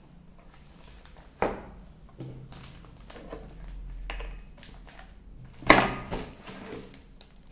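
Paper sheets and craft items handled on a tabletop: a sharp knock about a second and a half in, and a louder clatter near six seconds, with smaller scattered clicks in between.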